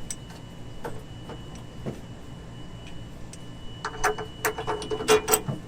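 Socket ratchet clicking as a nut is run down on a sway bar mounting bolt under a Ford F53 chassis, with a few scattered metallic clicks first and then a quick run of ratchet clicks from about four seconds in. A low steady hum lies underneath.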